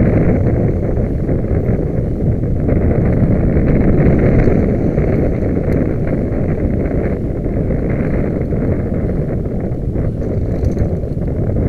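Wind buffeting the microphone of a moving camera: a loud, steady low rumble with no pitched engine tone.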